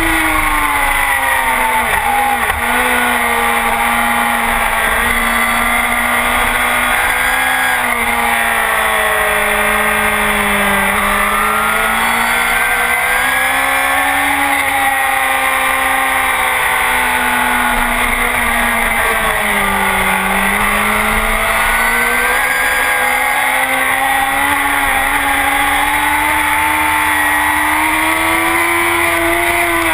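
Honda CBR1000RR's inline-four engine with a full Akrapovic exhaust, run hard on a race track. Its pitch climbs and falls continuously, sinking lowest three times as the bike slows for corners and then rising again.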